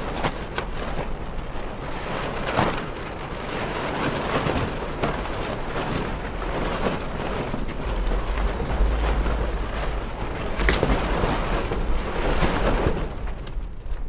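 Strong wind rushing and gusting over a Hunter 41 sailboat, recorded at the stern, with water washing around the hull and a low buffeting rumble on the microphone in the stronger gusts. The wind eases near the end, as it goes from strong to soft.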